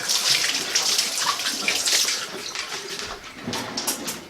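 Tap water running at a sink as hands are washed under it. The water stops about three seconds in, followed by a couple of light knocks near the end.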